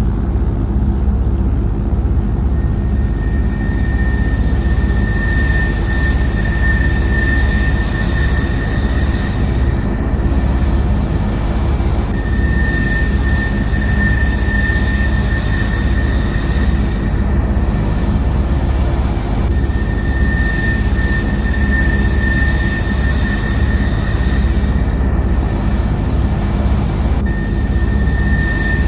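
Steady aircraft engine drone with a deep rumble and a high steady whine, a looped recording that repeats about every seven and a half seconds.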